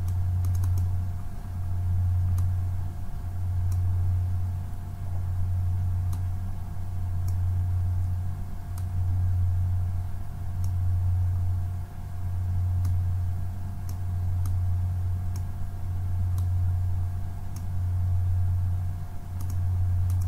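A steady low hum that swells and dips every couple of seconds, with a faint thin tone held above it. Light computer mouse clicks come now and then.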